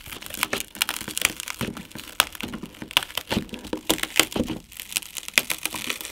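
Shattered textured glass back panel of an Oppo Find N folding phone crackling and crunching as it is peeled up and pried away from its adhesive with a metal pry tool: many small, sharp, irregular cracks.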